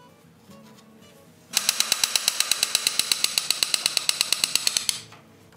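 Hand ratchet clicking rapidly and evenly, about nine clicks a second, for a little over three seconds, starting about one and a half seconds in. The ratchet is being worked on the frame while a new wooden runner section is held in place on a cutter sleigh.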